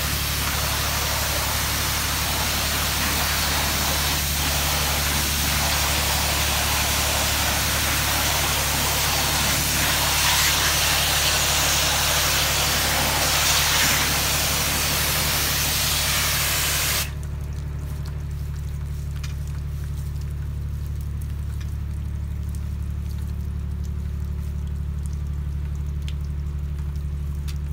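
Water spraying from a soft-wash sprayer as a loud, steady hiss over the even hum of its motor; the spray cuts off suddenly about two-thirds of the way through, leaving the motor humming alone.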